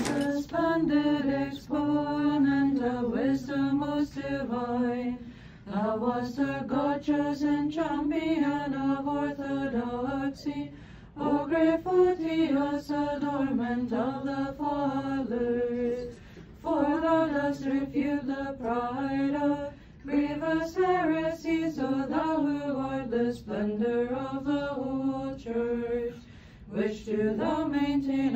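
A group of Orthodox clergy, monks and nuns chanting a hymn together in sung phrases of several seconds, with short breaks between them.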